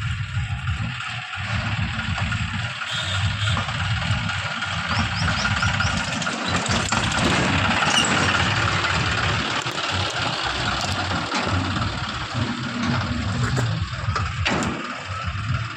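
John Deere tractor's diesel engine running, getting louder for a few seconds in the middle and then settling back.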